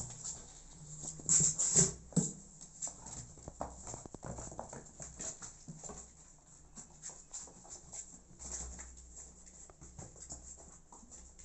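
Irregular light taps and scuffles of kittens scampering on cardboard and around a wire cage, loudest about two seconds in.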